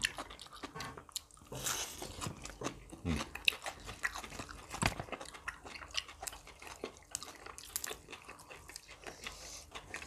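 People chewing crisp fresh vegetables, herbs and grilled pork close to the microphone: irregular crunching and chewing.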